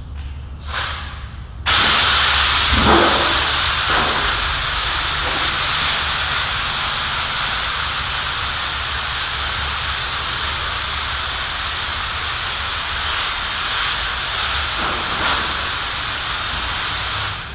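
Welding arc on steel plate: a short burst near the start, then a steady, loud hiss that starts suddenly about two seconds in and cuts off just before the end.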